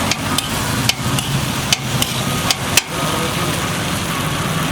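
Metal spatula knocking against a cooking pan, about seven sharp strikes in the first three seconds, over a steady hiss of frying.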